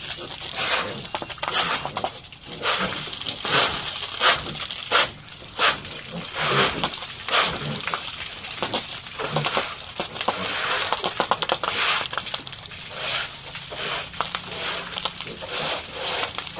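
Pigs making a run of short, noisy sounds, about two or three a second.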